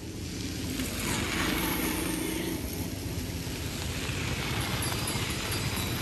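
A motor running with a steady whirring noise that grows louder about a second in and then holds.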